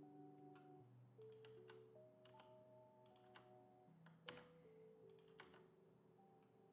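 Faint background music of slow, held notes that change chord every second or two. A few scattered clicks from working at a computer sound over it, the sharpest a little after four seconds in.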